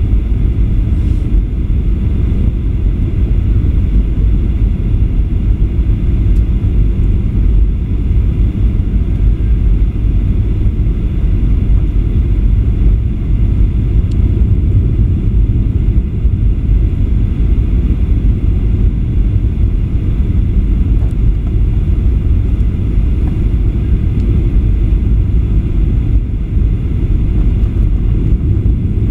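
Steady low rumble of engine and airflow noise inside the cabin of a Boeing 737-800 airliner descending on approach, heard from a window seat over the wing.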